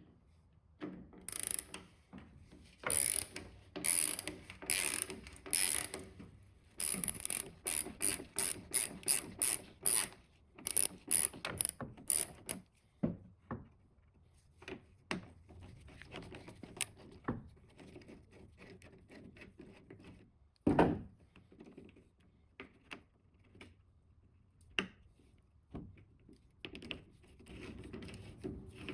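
Hand ratchet wrench clicking through a series of strokes on a bolt, slower at first, then about three clicks a second. Then quieter handling noises and a single knock.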